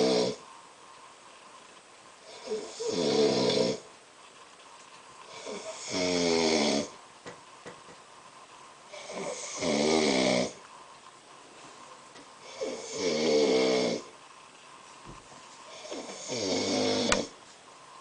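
A man snoring in his sleep: about five loud snores roughly three and a half seconds apart, each a buzzing snore that drops in pitch, with quiet breathing between. A single sharp click near the end.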